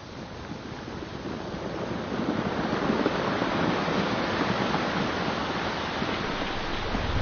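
Rushing-water sound effect for a slow-motion splash: a surf-like noise that swells over the first three seconds, then holds steady.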